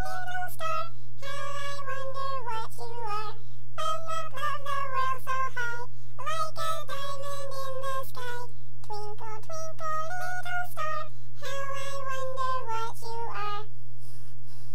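Singing sped up to a high, squeaky chipmunk-style pitch, in sung phrases broken by short pauses, over a steady low hum.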